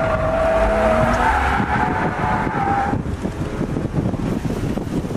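Heard from inside the cabin, an E36 BMW M3's inline-six engine is working hard while the tyres squeal in a slide. The squeal cuts off about three seconds in, leaving the engine running and road and wind noise.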